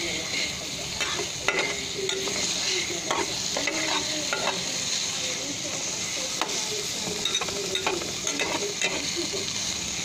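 Sliced onion and garlic sizzling in hot oil in a frying pan, with a steady hiss. A metal spatula stirs them, scraping and tapping against the pan in irregular strokes.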